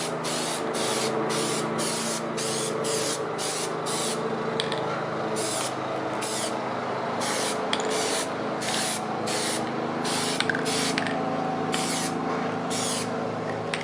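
Aerosol can of Plasti Dip sprayed in many short hissing bursts, about one and a half a second, laying down a thin first coat. A steady low hum runs underneath.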